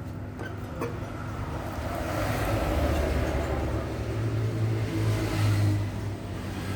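A motor vehicle engine running, a low rumble that grows louder from about two seconds in and is strongest near the end.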